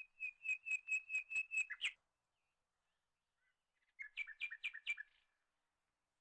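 A bird singing two phrases of evenly repeated clear notes. The first is a run of about eight notes lasting about two seconds; after a pause of about two seconds comes a shorter run of about five notes.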